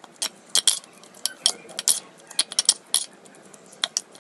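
Metal spoon clinking and scraping against a stainless steel bowl while mixing raw chicken pieces in a marinade: an irregular run of sharp clinks, several a second.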